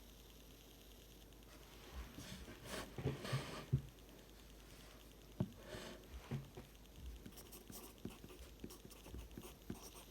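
Pencil writing on paper: scratchy strokes with small taps, starting about a second and a half in, pausing briefly around four seconds, then going on more lightly.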